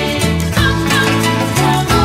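Background music: an upbeat instrumental track with steady bass notes and a regular beat.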